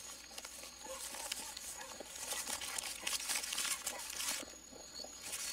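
Paper wrapping of a parcel crinkling and tearing as it is unwrapped by hand, in rustling bursts that are loudest about two to four seconds in.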